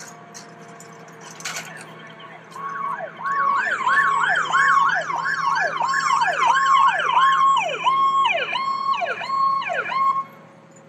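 Electronic emergency-vehicle siren cycling quickly through a repeating up-and-down wail. It starts about two and a half seconds in and cuts off abruptly near the end.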